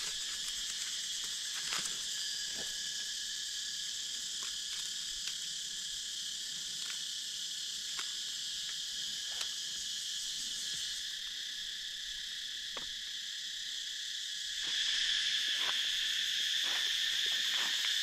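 Steady buzzing chorus of forest insects, with scattered faint clicks over it. About three quarters of the way through the chorus grows louder as a stronger high buzz joins in.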